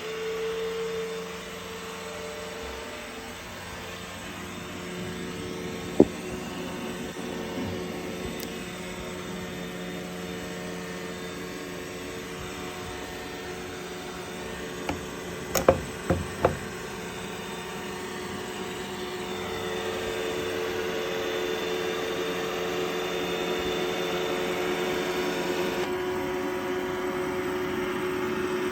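Roomba robot vacuum running with a steady motor and brush whir. There is a sharp knock about six seconds in and a quick cluster of knocks a little past the middle, and the whir's tone shifts lower near the end.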